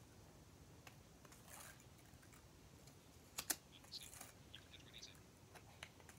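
Near silence: quiet room tone with scattered faint clicks and taps, two sharper clicks close together about three and a half seconds in.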